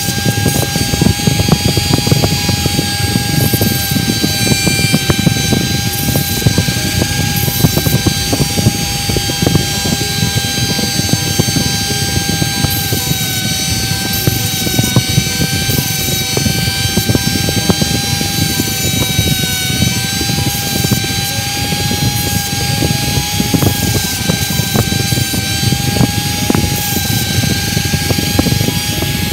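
A running motor: a steady mechanical whir with a slightly wavering tone over a rough low rumble.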